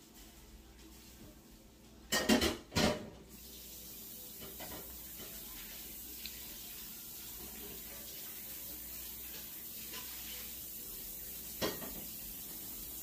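Dishes clatter twice about two seconds in, then a tap runs steadily with a hiss of water. A single light knock comes near the end.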